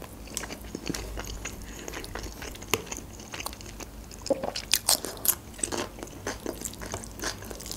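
Close-miked eating sounds: chewing and wet mouth clicks on grilled chicken, with a cluster of crisp crunches about five seconds in as a raw cucumber slice is bitten.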